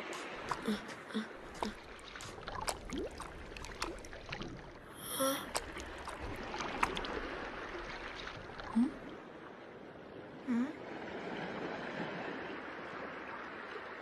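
Animated sea turtle hatchlings making short little squeaks and gasps over a steady wash of surf, with scattered light clicks and a brief louder burst about five seconds in.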